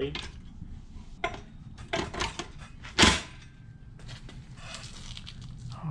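Metal clanks and knocks as a Predator 212 engine is lowered and settled by hand onto a metal motor mount plate over its upright bolts. Several light knocks, then one sharp ringing clank about three seconds in, the loudest.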